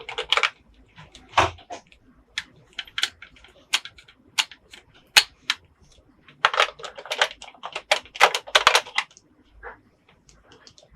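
Small plastic toy pieces clicking and clacking as they are handled and set down on a plastic playhouse, in irregular taps that come thickest from about six to nine seconds in.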